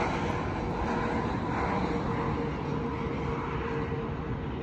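Jet airliner on final approach with its engines running, a steady rumbling drone with a held whine.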